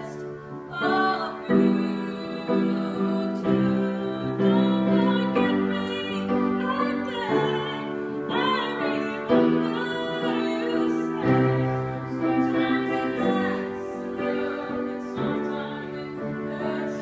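A woman singing with piano accompaniment, her voice carrying a gliding melody over sustained piano chords.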